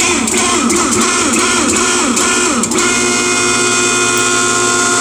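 K501 hydraulic hose crimper running a crimp cycle: the machine starts abruptly and runs loudly with a whine of several tones that wobble in pitch for the first few seconds, then hold steady.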